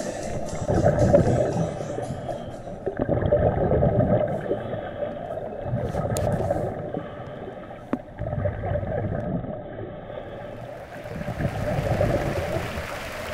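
Muffled underwater sound picked up by a diver's camera: a low rumbling and gurgling of water that swells and fades every couple of seconds, with faint steady tones behind it and a couple of sharp clicks about halfway through.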